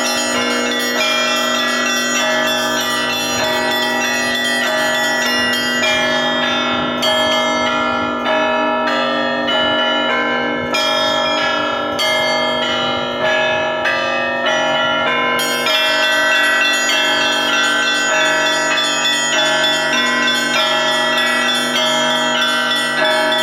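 Russian Orthodox church bells rung in a full peal: many bells of different sizes sounding together, with a steady deep tone beneath. The small high bells thin out for several seconds in the middle, then come back in with rapid chiming.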